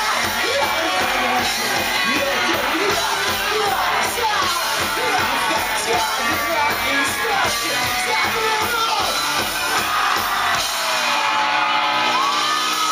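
Rock band playing live, with a sung vocal over guitars and drums and shouts from the crowd. About eleven seconds in the drums and bass drop out, leaving a few held notes, one sliding upward.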